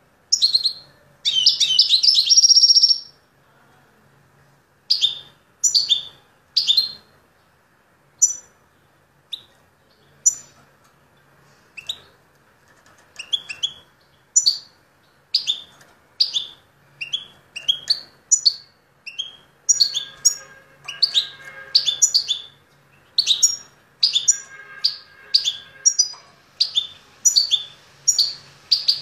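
A caged songbird sings a brief loud trill, then gives a long run of short, sharp chirps about once a second, each falling in pitch and coming closer together in the second half.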